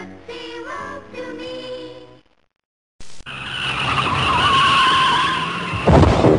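A sung jingle ends and cuts to a moment of silence; then car tyres squeal in a long skid of about two and a half seconds, ending near the end in a loud, heavy thump.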